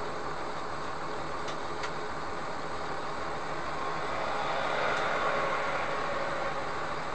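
A semi truck passing close by, its noise swelling and fading between about four and six and a half seconds in, over a steady hum of idling engine and traffic noise.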